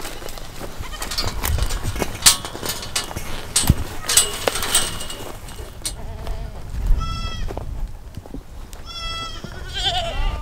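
Goats bleating: two short high-pitched bleats about seven and nine seconds in and a lower one near the end, after several seconds of scattered knocks and rustling.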